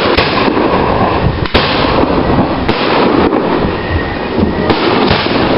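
Aerial fireworks shells bursting overhead: a continuous din of bursts with about five sharper bangs standing out.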